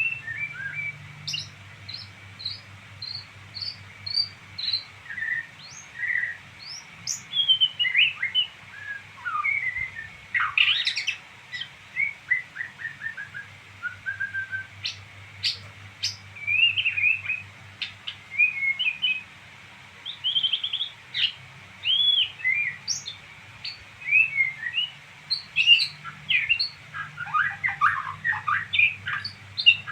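A songbird twittering: a fast, varied string of short chirps and whistled notes, many sweeping up or down, with brief pauses between phrases. A faint steady low hum sits underneath.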